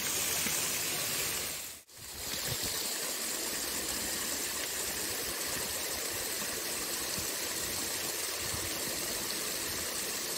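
Small stream water rushing over a little cascade and riffle into a shallow pool: a steady hiss of running water that drops out briefly about two seconds in.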